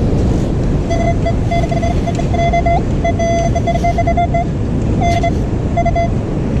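A Garrett pin-pointer beeping on a buried metal target: a high electronic tone in rapid pulses, some almost running together, then two short bursts near the end. The pulses signal that the probe is right at the target. Heavy wind rumble on the microphone runs underneath.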